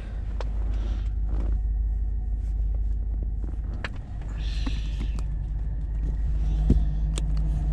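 Pickup truck engine idling steadily as a low rumble heard inside the cab, with a few sharp clicks and knocks as the camera is handled and repositioned.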